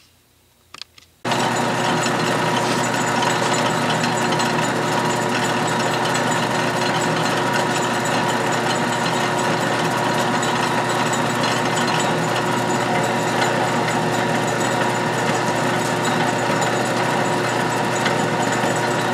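A couple of clicks, then about a second in the 12-inch Atlas/Craftsman lathe starts and runs steadily in back gear at slow speed, with a constant hum and whine from its drive, as a boring bar takes a pass cutting an internal thread.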